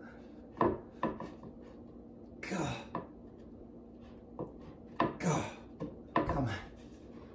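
Particleboard desk panels and hardware being handled: a series of knocks, clatters and scrapes, with a few strained grunts. The loudest come near the end.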